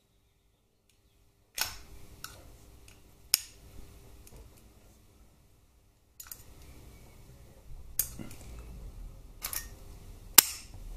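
Screwdriver tip and steel circlip clicking and scraping against an aluminium clutch release cover as the circlip is worked into its groove. Several sharp metallic clicks come at irregular intervals after a silent first second and a half, and the loudest comes near the end.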